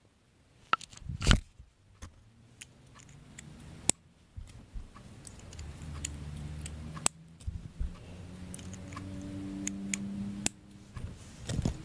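K'Nex plastic rods and connectors clicking and rattling as they are handled and snapped together, with a sharp click about a second in. A low hum rises under the clicks in the second half.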